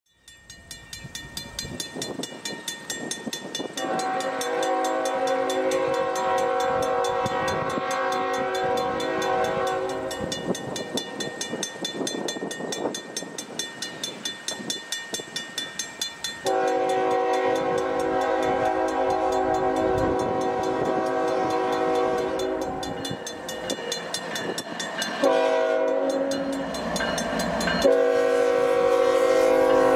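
Air horn of a GE ES44AC diesel-electric locomotive (CN 3815) sounding the long, long, short, long grade-crossing signal as the freight train approaches. A rising rumble of the oncoming train comes first and stays under the horn throughout; the first blast starts about four seconds in, and the final long blast is still sounding at the end.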